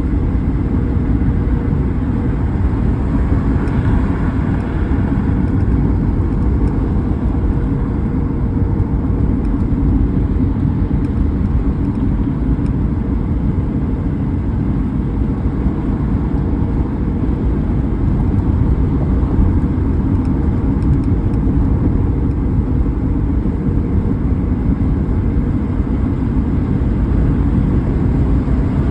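A car driving at a steady pace: a continuous low rumble of road and engine noise, with a brief swell a few seconds in.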